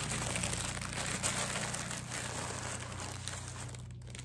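Packaging crinkling and rustling as it is handled and unwrapped, dying down near the end.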